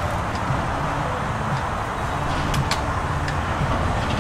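Steady rushing background noise, with two sharp clicks close together about two and a half seconds in.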